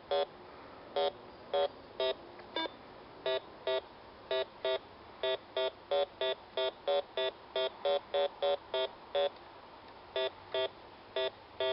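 Metal detector beeping: a couple of dozen short beeps, all on the same mid pitch and irregularly spaced at about two or three a second, with one short break about three-quarters of the way through. It is sounding on a metal target in the ground being searched.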